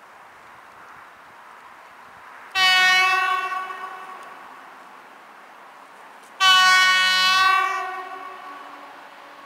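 Electric locomotive EP09's horn sounding two blasts about four seconds apart, each held steady for about a second and then fading away. It is the Rp1 'attention' warning signal given by the approaching train.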